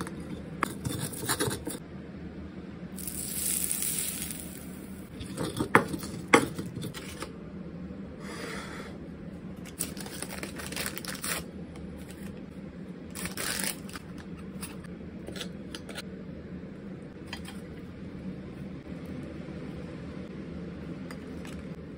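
A stone pestle grinding and knocking red chilies and garlic in a clay mortar (ulekan in a cobek), with two sharp knocks about six seconds in, followed by shorter intermittent scrapes.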